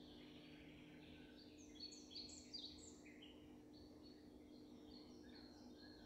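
Faint background songbirds singing quick, high chirping notes, with a louder run of notes about two seconds in, over a low steady hum.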